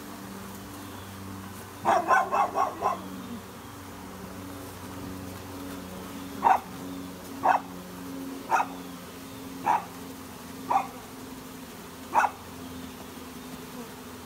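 Honeybee swarm humming steadily as the bees are shaken into a hive box, with a dog barking over it: a quick run of about five barks about two seconds in, then six single barks about a second apart.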